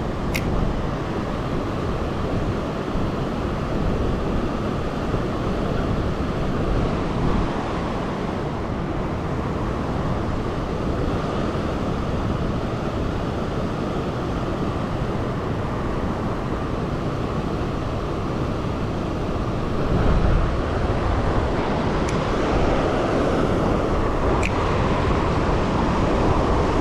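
Steady rushing of a river current running at full flow, with a few faint clicks.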